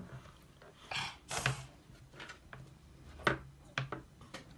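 Scattered light taps and clicks of plastic Play-Doh moulds and tools handled on a tabletop, with a brief rustle about a second in and a sharper click about three seconds in.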